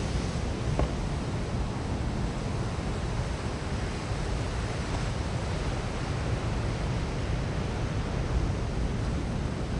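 Wind buffeting the microphone over the steady wash of sea surf, a constant rushing noise heaviest in the low end.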